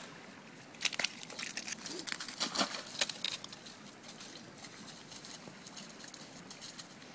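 Footsteps crunching and clicking over thin creek ice and loose shale slabs: a cluster of sharp crunches from about a second in, then fainter scattered steps.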